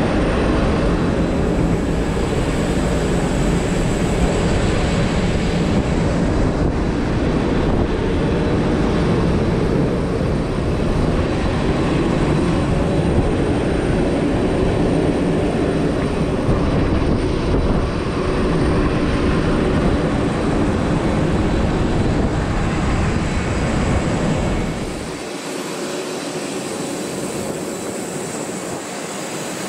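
Steady jet-airliner noise on an airport ramp, a loud rumbling roar with a thin high turbine whine on top. About 25 seconds in the low rumble drops away and the level falls, leaving the whine and a lighter hiss.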